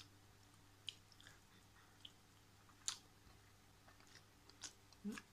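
Quiet chewing of a mouthful of food, with a few soft mouth clicks and smacks spaced a second or two apart.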